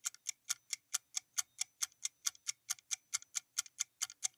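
Countdown-timer sound effect: a clock ticking quickly and evenly, about six ticks a second.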